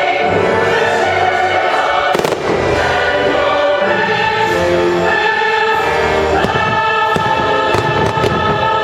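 Choral and orchestral fireworks-show soundtrack playing loudly, with sustained sung chords. Firework shells burst several times through the music, the sharpest about two seconds in and more around seven to eight seconds.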